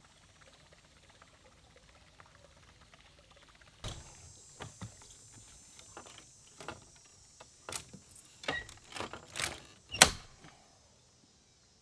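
A string of knocks and clunks on a bass boat's deck and hull, with some water splashing, as the bow is worked against the shoreline. The knocks start about four seconds in and grow louder, with one sharp bang near the end.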